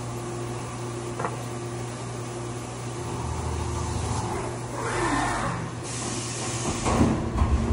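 Haas CNC vertical mill cutting a part clamped in a vise under flood coolant: a steady machine hum and coolant spray with an on-off cutting tone. About five seconds in there is a falling whine as the spindle lifts out of the cut, then louder rushing and clunking noise from the machine's moves near the end.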